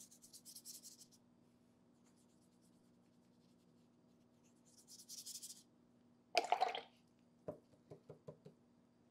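Synthetic round paintbrush swishing across mixed media paper, wetting wax pastel, in two short faint strokes. About 6.5 s in there is a briefer, louder sound, followed by a few light taps.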